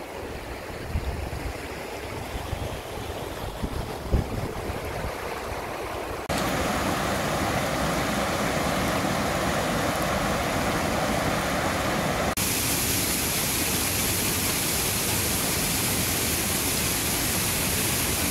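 Gusty wind rumbling on the microphone for about six seconds, then a sudden cut to a shallow rocky stream rushing over stones, then about six seconds later another cut to a cascading waterfall's steady rush of water, brighter and hissier.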